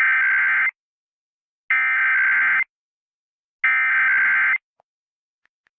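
Emergency Alert System SAME header: three loud bursts of screechy two-tone digital data, each about a second long with a second of silence between them. They encode the alert's type and area, here for an EAS test broadcast over radio.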